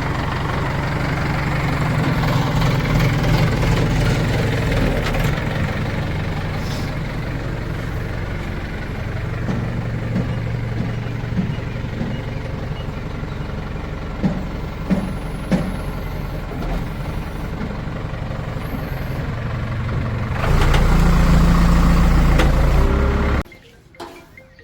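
Heavy diesel engine running, its load and pitch rising and falling, louder for a few seconds near the end, with a few knocks in the middle. The engine sound cuts off abruptly shortly before the end.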